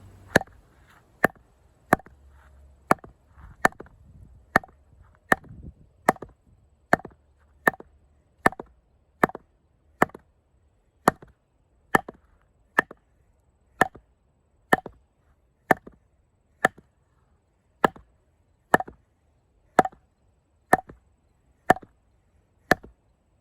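Repeated blows of a baton on the spine of a Condor Heavy Duty Kukri, driving its thick carbon-steel blade into a log to split it. There are about 26 sharp knocks in a steady rhythm of roughly one a second, each with a brief ring.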